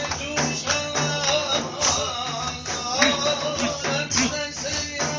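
Live music: a held, wavering melody over a steady hand-percussion beat.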